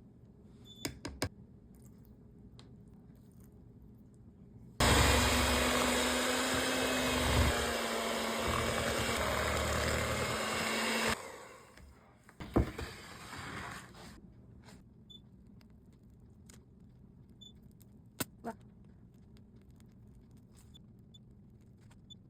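An electric kitchen appliance motor runs steadily for about six seconds, starting and stopping abruptly, with a steady hum under it. A few light knocks come before and after it.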